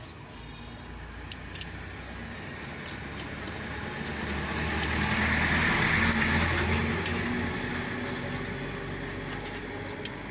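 A motor vehicle passes by: its engine and tyre noise rise to a peak about halfway through, then fade. A few light metallic clicks come near the end.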